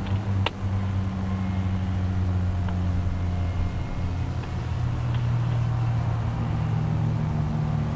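Classic touring car engines running steadily at low revs as the cars drive slowly past on the lap after the race finish, with the engine note moving a little higher about halfway through.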